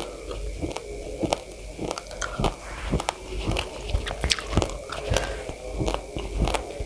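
Chewing a mouthful of raw, uncooked rice: an irregular run of sharp crunches and crackles, several a second, as the hard dry grains break between the teeth.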